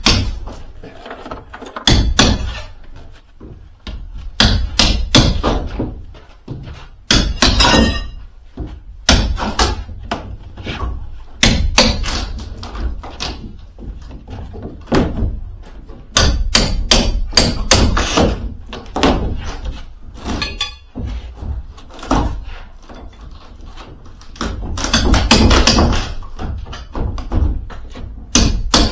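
Irregular series of thuds, knocks and clatter from parts and panels being handled and set down while unboxing a mini excavator, with several slam-like bangs.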